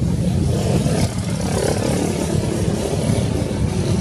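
Boat engine running with a low rumble, mixed with wind buffeting the microphone.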